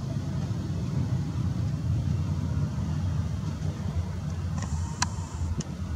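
Low, steady rumble of a Boeing 737-800 being pushed back by its tug, with a brief hiss and a sharp click about five seconds in.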